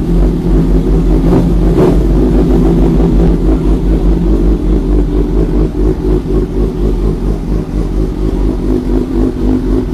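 Big sport motorcycle's engine running at low revs as the bike creeps forward in first gear, its steady note wavering unevenly in loudness.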